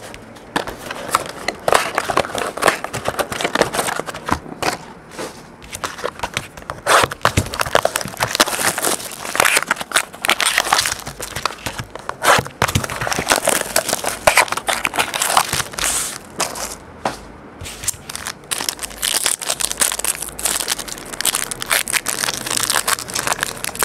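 Plastic shrink wrap on a trading-card box being cut with scissors and pulled off, then a foil wrapper crinkling as it is torn open and crumpled: an irregular run of crackling, crinkling rustles with sharp clicks.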